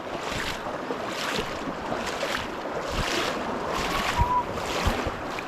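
River water rushing and lapping around an oared fishing boat, with wind on the microphone and a few dull knocks in the second half.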